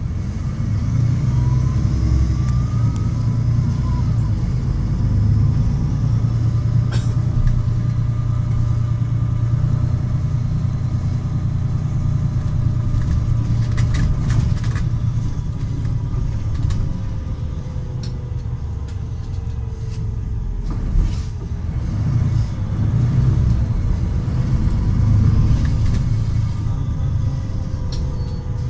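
Inside a Solaris Urbino 12 city bus under way: a steady low rumble of engine and road noise, with a faint whine that rises and falls in pitch as the bus changes speed. A few short rattles come through.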